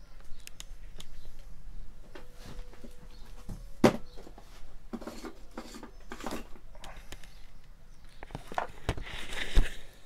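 Handling noise from a disassembled electric fan motor being picked up and moved: irregular clicks, rustles and knocks, with two sharp knocks, one about four seconds in and one near the end. The motor is not running.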